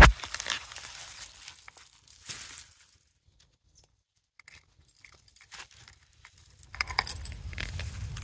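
Rustling and crinkling of onion leaves and grass as onions are pulled by hand from sandy soil, with one sharp knock at the very start. The middle is nearly silent, then a low rumble and more rustling begin about seven seconds in.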